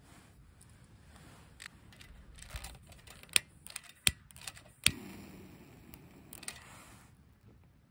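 Ferrocerium fire-steel rod struck with a scraper over a fire-starter cube in a small folding metal stove: a series of sharp scraping strikes, the three loudest in the middle about two-thirds of a second apart, followed by a softer low hiss.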